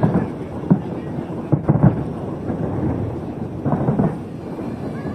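Fireworks shells bursting overhead: a run of deep booms, about six in a few seconds, over a continuous rumble.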